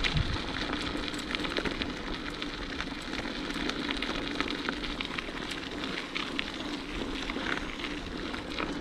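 Bicycle tyres rolling over a gravel forest path: a steady crackling rustle with many small clicks of grit.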